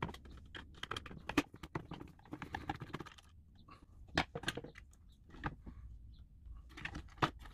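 Scattered light clicks and taps of a screwdriver and fingers on the plastic case and circuit boards of an opened DAB radio as a screw is undone.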